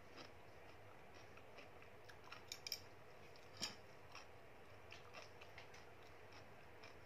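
Faint clicks and taps of a spoon and chopsticks against a plastic food container and each other as a spoonful of rice, pork and cucumber is put together. A quick cluster of sharper clicks comes about two and a half seconds in, and the loudest single click follows about a second later.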